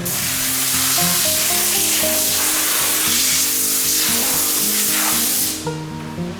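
A loud, steady hiss that starts abruptly and cuts off about five and a half seconds in, over background music with a melody.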